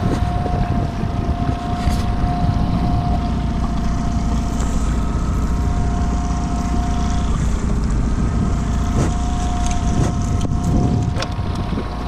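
Small outboard motor idling steadily, with wind on the microphone and a few short knocks.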